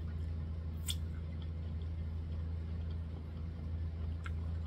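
Steady low hum, with two short sharp clicks, one about a second in and one near the end.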